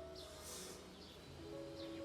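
Soft background music with sustained held notes, with short bird-like chirps over it and a brief hiss about half a second in.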